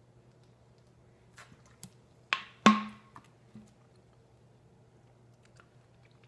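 Drinkware set down on a hard tabletop: a few small clicks, then two sharp knocks about a third of a second apart, each with a short glassy ring, and a couple of faint clicks after.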